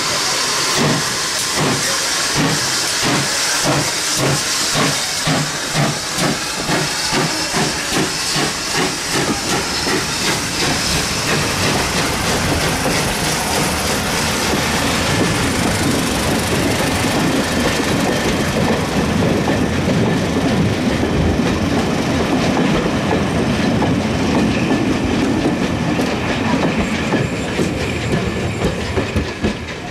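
GWR 64XX class 0-6-0 pannier tank steam locomotive No. 6430 pulling away with its train: exhaust beats at about two a second over hissing steam. After about twelve seconds these give way to the steady clickety-clack of the coaches' wheels rolling past over the rail joints.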